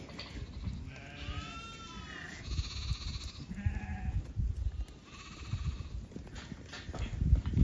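White Dorper ewes bleating: several wavering calls one after another, over low, irregular thuds from the milling flock. A heavy low thump near the end is the loudest moment.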